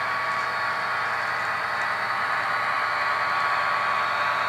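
HO scale model diesel locomotive running along the layout track: a steady whirring hiss from its motor, gearing and wheels.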